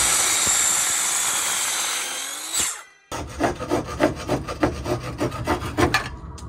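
A benchtop miter saw with a 190 mm blade cuts a wooden board at 45 degrees, running loud and steady for about two and a half seconds before stopping. The saw cannot cut through in one pass, so a handsaw finishes the cut with quick back-and-forth strokes, about four a second.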